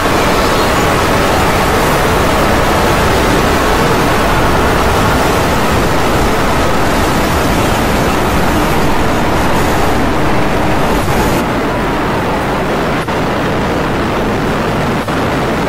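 Loud, harsh static-like noise, dense and steady with no clear tone or rhythm; its hiss thins a little about eleven seconds in.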